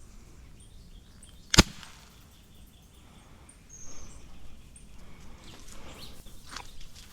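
A single sharp gunshot crack about one and a half seconds in, a hunting gun fired at a bird, with faint outdoor background and soft rustling steps toward the end.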